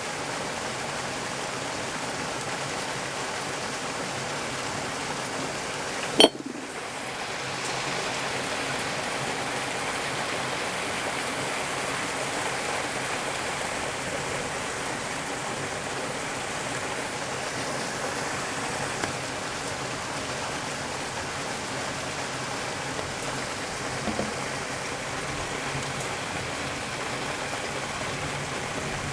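Heavy rain falling in a steady, even hiss, broken by one sharp, loud knock about six seconds in.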